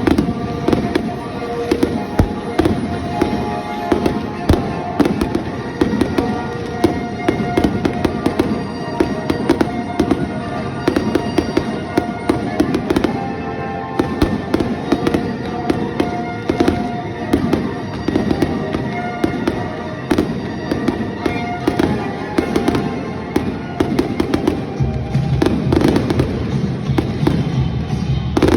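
Fireworks display going off in a rapid, continuous string of bangs and crackles, with music playing along.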